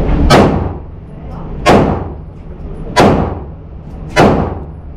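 Four 9mm pistol shots from a Glock 43X, fired at a slow, even pace about a second and a quarter apart, each followed by a short echoing tail.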